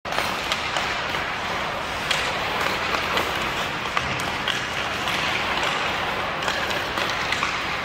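Hockey skate blades carving and scraping across rink ice in a steady hiss, with sharp clicks now and then as the stick blade handles the puck.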